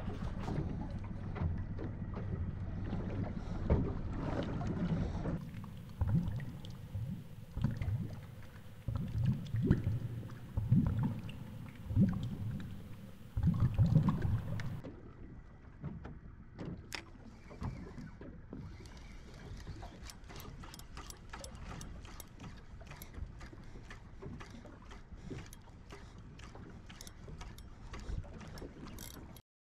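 A boat's engine hum with wind on the microphone, then about nine seconds of muffled water rush and low thumps from a lure-mounted camera pulled through the sea. After that come light repeated clicks and ticks as a spinning reel is wound in.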